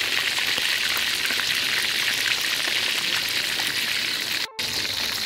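Whole pomfret deep-frying in a wok of hot oil: a steady, dense sizzle with fine crackling, cutting out for an instant about four and a half seconds in.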